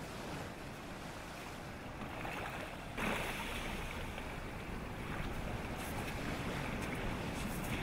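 Small waves washing onto a sandy, rocky shore, with some wind on the microphone; the surf noise steps up suddenly and gets brighter about three seconds in.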